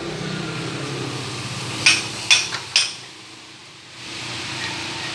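Three sharp knocks or clinks about half a second apart, over a low steady hum that dips briefly after them.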